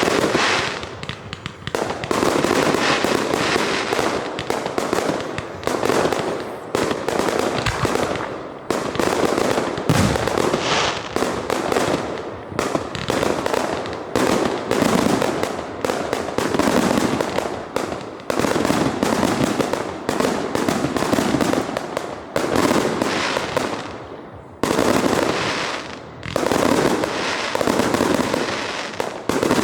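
Fireworks going off in rapid succession: many overlapping bangs and crackles, nearly continuous, with only brief lulls.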